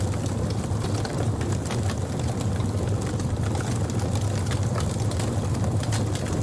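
Wood fire crackling: frequent irregular snaps and pops of burning wood over a steady low rumble.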